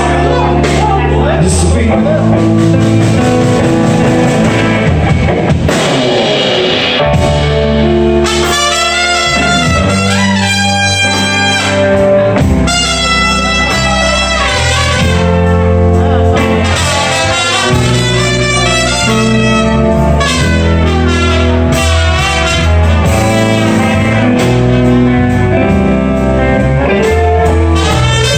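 A live blues band playing, with electric guitars and drums; a trumpet carries a solo melody over the band from about eight seconds in.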